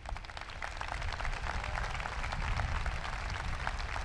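A large crowd applauding: a dense, steady patter of many hands clapping.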